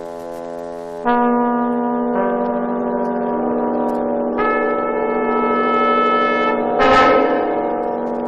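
Film score music: sustained held chords that build as new notes enter one after another, with a brief crash about seven seconds in.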